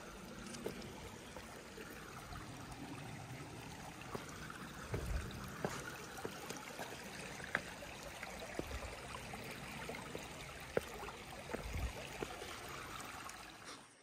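Shallow stream running and trickling over rocks, with a few sharp clicks of a trekking pole tip and shoes on the stones as someone steps across. It cuts off abruptly at the end.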